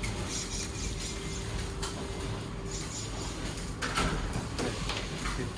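Workshop room noise: a steady low machine hum with a faint steady tone, broken by a few light clicks and scrapes of small parts being handled, the clearest about four seconds in.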